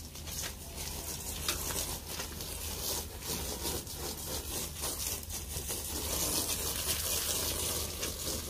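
Water spraying from a garden hose wand onto bare soil: a steady hiss with light pattering, getting a little louder about six seconds in.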